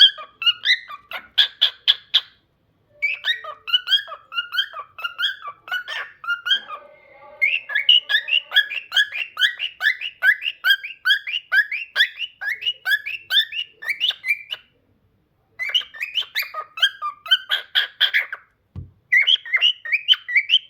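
A cockatiel chattering in long runs of short whistled chirps, several a second, broken by a few brief pauses. A single soft bump sounds near the end.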